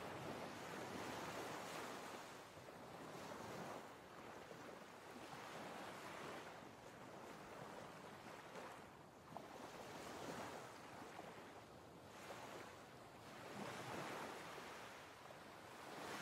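Faint sea waves washing, a rushing noise that swells and fades every few seconds.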